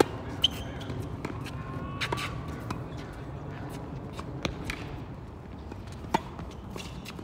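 Tennis rally on an outdoor hard court: sharp pops of the racket strings striking the ball and of the ball bouncing. The loudest pops come right at the start and about six seconds in.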